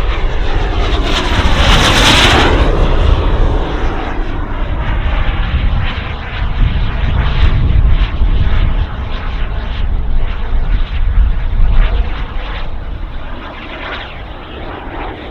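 Model jet turbine of a radio-controlled scale BAE Hawk in Red Arrows livery making a fast pass about two seconds in, its high whine falling in pitch as it goes by. The jet noise then runs on, swelling and fading as the model manoeuvres.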